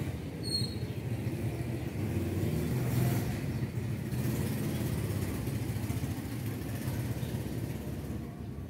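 Low rumble of a passing motor vehicle, loudest about three seconds in and fading near the end.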